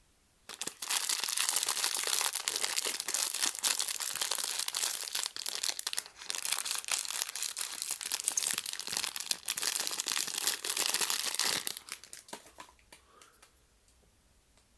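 Crinkling and tearing of a blind-box figure's plastic packet as it is opened. The crackling runs densely for about eleven seconds, then stops, leaving a few faint rustles.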